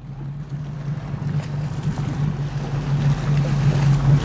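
A 1997 Sea Ray bowrider's engine running with a steady low hum, with wind buffeting the microphone and water rushing past the hull, slowly growing louder.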